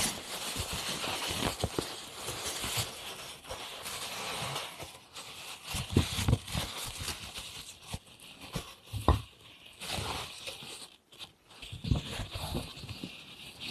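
Handmade paper being handled: rustling and crinkling, with a few soft knocks.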